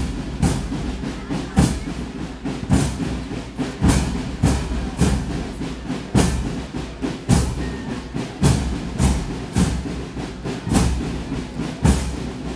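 Marching band percussion playing a steady march beat: bass drums and crash cymbals striking together about once a second, with lighter drum hits in between.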